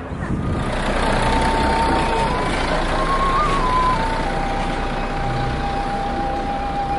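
A single wind instrument playing a slow melody: a few held notes stepping up and back down, then one long held note from about four seconds in. Under it a steady rumble of idling tour-bus engines.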